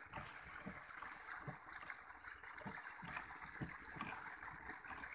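Faint, steady trickle of running water flowing into a pond.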